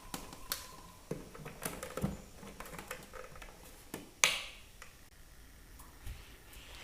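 Scattered light clicks and taps of small hard objects being handled, with one sharper click about four seconds in.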